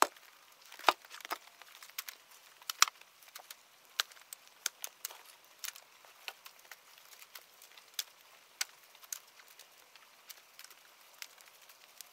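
Irregular crackling and snapping of twigs and cut brush, loudest about one and three seconds in.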